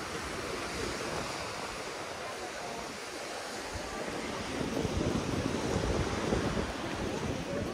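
Sea surf washing ashore, mixed with wind buffeting the microphone; the rumble grows louder about halfway through.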